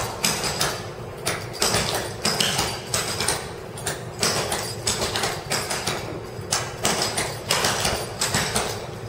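Clogging steps on a hardwood floor: the shoes' taps click sharply in quick rhythmic groups, with brief pauses between the groups.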